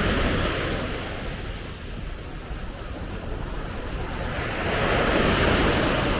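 Sea waves breaking and washing up on a sandy beach, the wash swelling at the start and again about five seconds in, with wind rumbling on the microphone.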